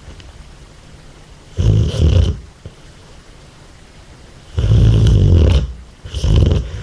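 American Staffordshire terrier snoring heavily in deep sleep: three loud snores, one about one and a half seconds in, a longer one about four and a half seconds in, and a shorter one about six seconds in.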